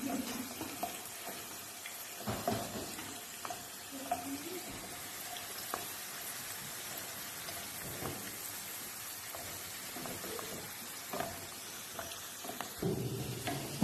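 Potato slices sizzling as they fry in hot oil in a pan, a steady hiss, with a few light taps and scrapes from wooden utensils turning the slices.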